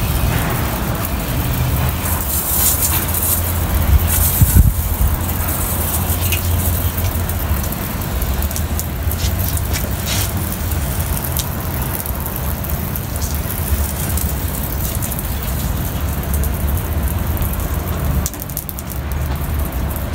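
A hand-pumped garden sprayer wand hissing as it sprays mold cleaner, over a steady low rumble. The hiss is strongest about two to five seconds in.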